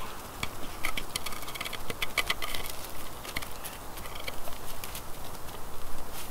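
Campfire crackling and dogs' footfalls on snow and leaf litter: scattered sharp snaps and light steps, thickest about one to two and a half seconds in.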